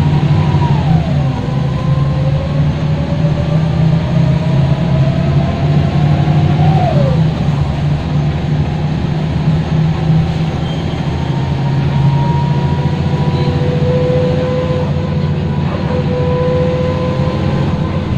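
Loud ZF automatic gearbox howl of a Mercedes-Benz O405G articulated bus, heard from inside the cabin over the deep drone of the engine. The whine drops sharply at an upshift about a second in, climbs slowly as the bus gathers speed, drops again at another shift about seven seconds in, then holds a steady pitch while the bus cruises.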